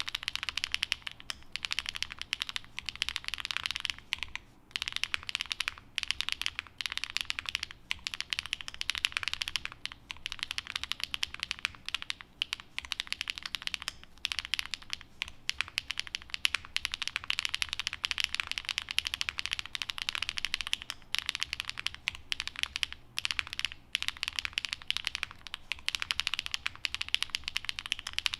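Continuous fast typing on a Qwertykeys NEO80 custom mechanical keyboard fitted with HMX Sunset Gleam (Duck Duck) linear switches, a POM plate, gasket-mounted PCB and GMK Mika keycaps: a dense stream of keystroke clacks as the switches bottom out, with a few brief pauses.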